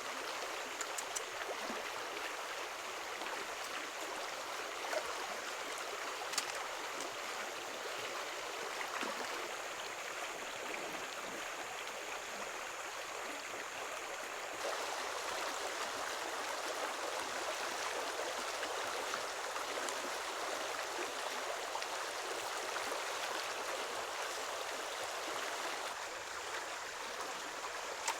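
Running water flowing steadily, a little louder from about halfway, with a couple of faint clicks.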